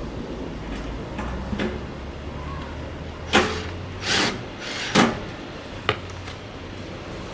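Corten steel planter panels being handled and fitted together: a few sharp metal knocks and a short scrape, loudest around the middle, with a few lighter clicks before and after.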